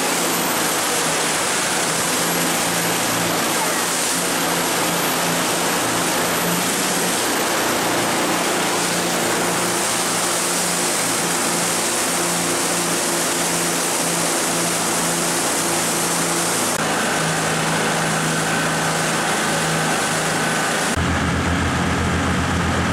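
Three-engine jet boat running hard through river rapids: a steady engine hum under the rush and hiss of whitewater and spray. Near the end the water noise thins and the engine note drops lower and stands out as the boat slows into calm water.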